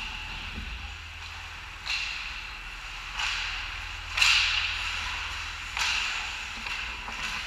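Ice hockey skate blades scraping and carving the ice in four sharp strokes, the loudest about four seconds in, each tailing off over about a second, over a steady rink hiss.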